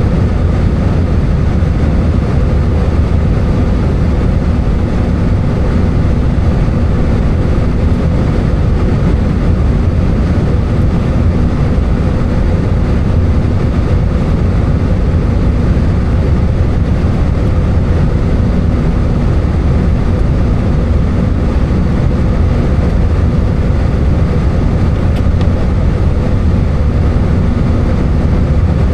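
Airbus A320 cabin noise: a steady, loud drone of the engines and airflow with a constant low hum, unchanging throughout.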